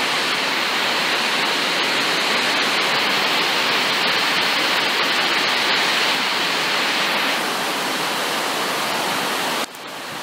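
A steady, loud rushing hiss with no pitch and faint ticks over it, cutting off abruptly near the end.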